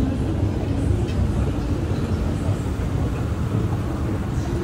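Steady low rumble of a running escalator and the underground station's machinery drone while riding up to the concourse.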